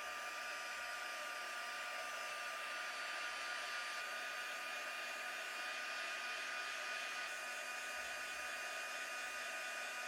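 Hand-held electric blower running steadily: a rushing of air over a constant high motor whine, cut off abruptly at the end.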